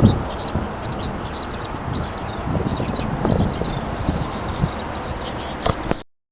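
Many small birds chirping rapidly and continuously over a low rumbling background noise; all sound cuts off abruptly near the end.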